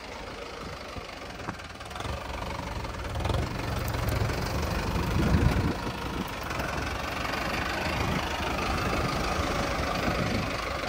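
Diesel engine of a Mahindra Arjun Novo 605 DI tractor running as it drives past close by with its mounted plough. It grows louder from about two seconds in, is loudest around five seconds, then settles to a steady run.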